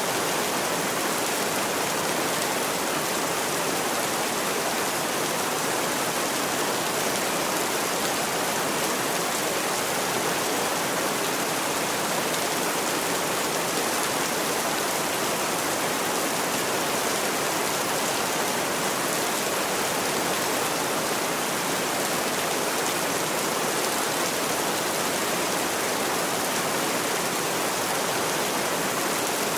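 Heavy rain falling as a steady, even hiss, with no thunder heard.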